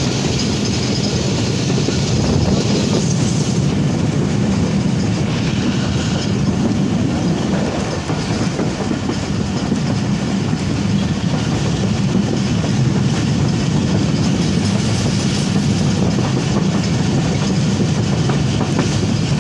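Passenger train running along the track, heard from aboard a coach: the steady, loud noise of the wheels on the rails.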